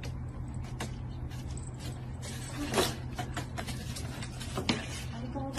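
A steady low hum with scattered faint taps and knocks of a cat's paws on a wooden floor, one slightly louder knock about three seconds in.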